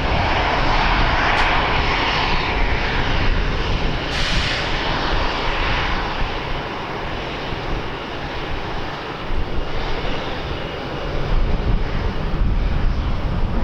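Aircraft engines, a broad rushing noise loudest over the first few seconds and then fading away, with wind buffeting the microphone underneath.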